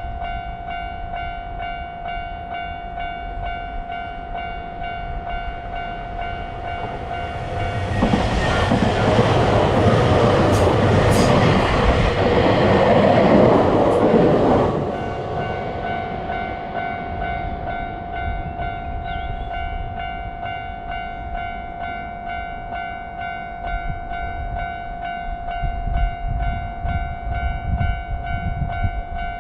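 Japanese level-crossing warning bell ringing steadily in its repeating "kan-kan" pattern. A train passes through the crossing: its noise builds from about six seconds in, covers the bell for several seconds, then drops away suddenly at about fifteen seconds, leaving the bell ringing on.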